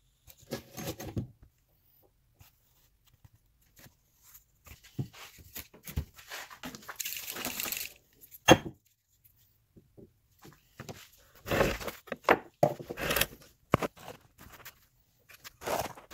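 Steel axe head being handled and shifted on a wooden workbench: scattered scrapes and knocks, with a single sharp clack about halfway through and a cluster of scraping noises a little later.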